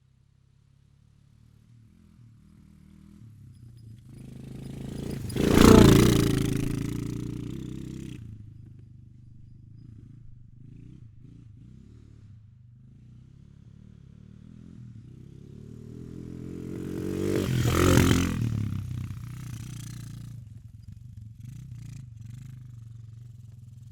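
Quad bike (ATV) engine driving past twice. It fades in from silence, passes close and loud about six seconds in with its pitch falling away after, runs on more faintly, then passes again about eighteen seconds in and fades off.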